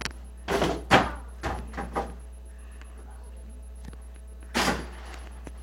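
A ball shot at an indoor hoop: a loud clatter about a second in, then three bounces that come quicker and quicker. Another thud comes near the end.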